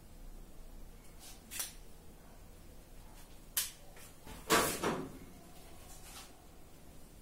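Handling noise as a cloth is clamped to a board: a few light clicks from the metal clamps, then a louder brief clatter and rustle about halfway through as the fabric is pulled open against the board.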